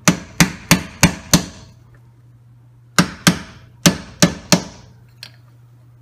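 Claw hammer striking a plastic pipe fitting held over a rear wheel hub's dust cap, driving the cap into the hub evenly: a run of five quick blows, about three a second, a pause, then another run of five, and a light tap near the end.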